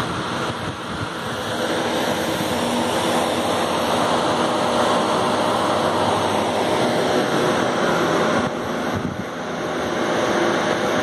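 A steady rushing noise that dips briefly near the end.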